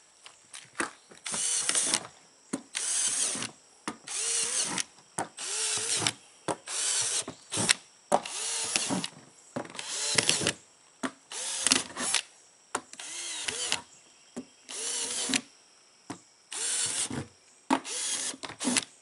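Cordless drill with a small bit drilling holes through the bottom of a plastic tough box, run in about a dozen short bursts with pauses between. Each whir rises and falls in pitch as the motor spins up and stops.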